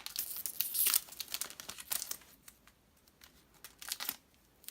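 Foil trading-card booster pack wrapper crinkling and cards rustling as they are handled, in irregular bursts that are busiest in the first two seconds, with another flurry near the end.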